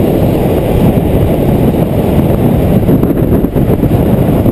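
Wind rushing over the microphone, mixed with the roar of longboard wheels rolling on asphalt at downhill speed.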